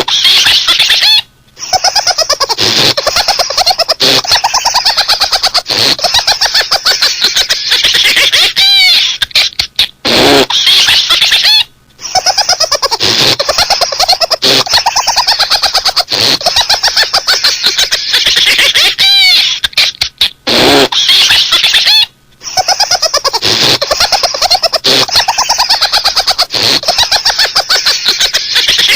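High-pitched, rapid laughter, the 'laughing cat' sound, played in the same loop about every ten seconds with short breaks between repeats.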